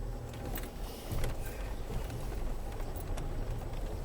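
Land Rover Freelander 2 engine running with a steady low rumble, heard from inside the cabin, with scattered light knocks and rattles.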